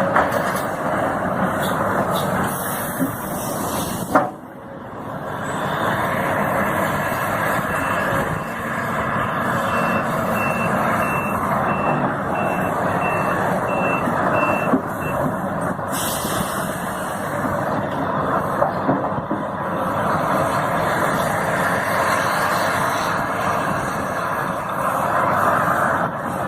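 Heavy diesel machinery, an excavator and dump trucks, running steadily, with a short sharp knock about four seconds in. A reversing alarm beeps at an even pace for several seconds in the middle.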